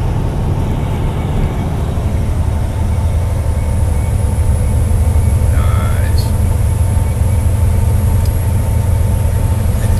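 Road and engine noise inside a car cruising on a highway: a steady low rumble that grows slightly louder. There is a short, faint squeak about halfway through.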